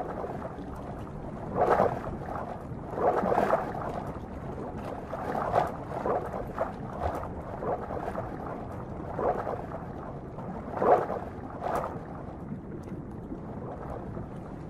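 Muffled churning and bubbling of water stirred by pelicans feeding at and under the surface, coming in irregular surges.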